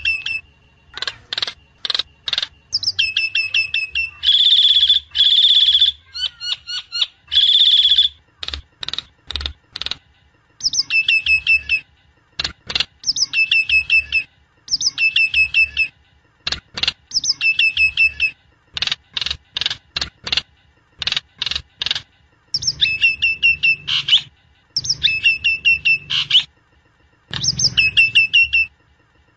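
Jalak nias (Nias hill myna) song from a lure recording meant to set a kept bird singing: loud repeated phrases of sharp whistles that slide down in pitch, broken by fast chattering runs and single sharp notes, with short pauses between phrases.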